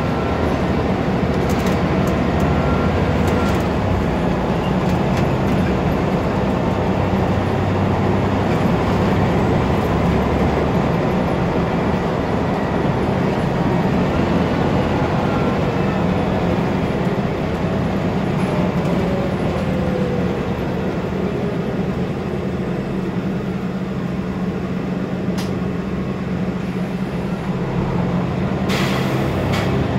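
Scania OmniDekka double-decker bus under way, heard from the upper deck: its diesel engine drones steadily under load over road noise, with occasional rattles of the bodywork and fittings. The engine eases off a little in the later part and picks up again near the end.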